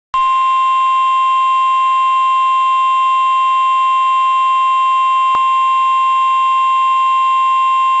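Emergency Alert System attention signal: one loud, steady pure tone a little above 1 kHz, the NOAA Weather Radio 1050 Hz warning alarm tone that comes before a severe weather warning message.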